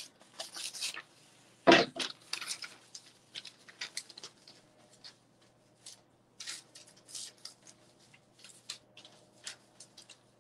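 Paper and fabric rustling and crinkling in short, irregular bursts as protective paper sheets are slid into a pair of boxers on the heat press platen, with one louder thump about two seconds in.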